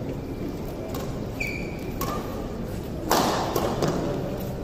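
Badminton racket striking a shuttlecock about three seconds in: a sharp hit that rings in the large hall, followed by a few lighter taps. Before it there is a brief high squeak.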